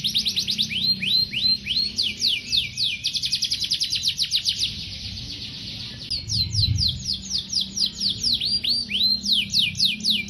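Domestic canary singing a long, continuous song of rapid trills of quick down-sweeping notes, broken by slower swooping notes. The song pauses for about a second near the middle and then resumes.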